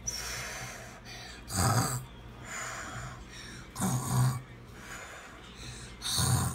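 Heavy breathing close to the microphone: a loud breath about every two seconds, with the blow of air on the mic.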